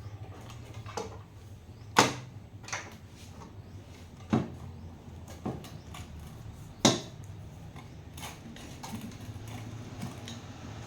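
A handful of sharp clicks and knocks, irregularly spaced, the loudest about two seconds in, over a steady low hum.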